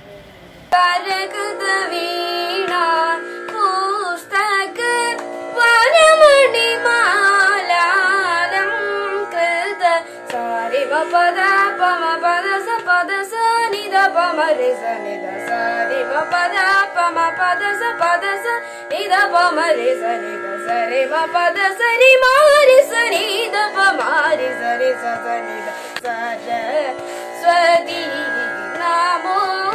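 A boy singing a Carnatic-style song, his melody sliding and wavering over a steady drone.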